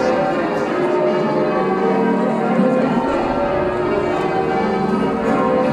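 Church bells ringing changes: many bells striking one after another in a continuous peal.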